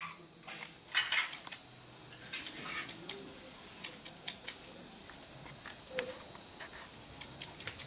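Crickets chirping in a steady, high-pitched night chorus, with scattered light clicks and rustles over it.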